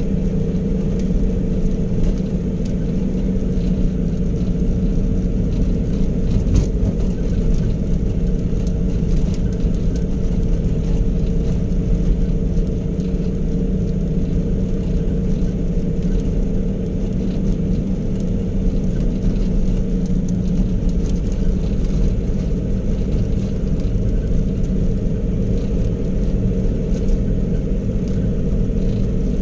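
Motor vehicle driving at a steady speed, heard from inside the cab: a continuous low engine drone with road noise.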